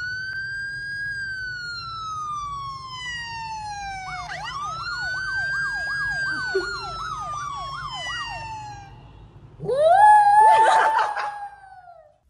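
An electronic siren wail playing from a phone: two long sweeps that rise quickly and fall slowly, the second wobbling fast as it falls. Near the end a louder call rises and is held, which fits the poodle howling along.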